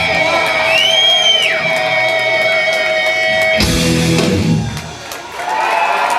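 Rock music led by electric guitar: held, wavering notes, with one note bent up and back down about a second in. About three and a half seconds in the sound cuts abruptly with a sharp hit, dips briefly, and different music comes back in.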